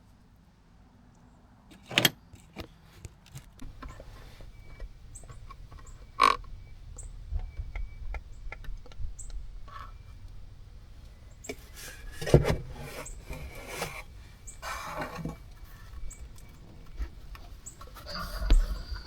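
Hand tools being gathered and put away: scattered sharp clinks and knocks, one ringing metallic clink about six seconds in, and a run of clattering from about twelve to fifteen seconds.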